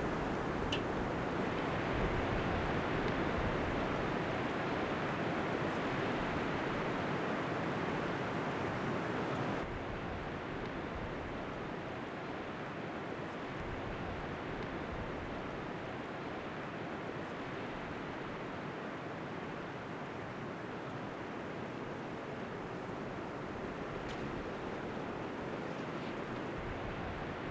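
Steady rushing wind of a snowstorm, with no distinct events. It drops a little in level abruptly about ten seconds in.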